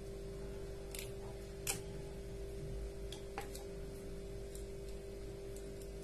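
Small sharp clicks and ticks of a screwdriver and wire being worked into the screw terminal of a plastic rotary switch, a few spaced apart, the loudest just under two seconds in, over a steady background hum.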